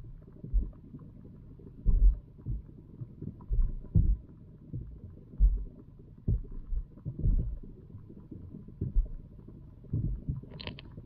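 Muffled underwater sound picked up by a camera submerged in a pond: irregular low thumps and gurgling rumbles of water moving against the camera housing. A brief, sharper, higher sound comes near the end.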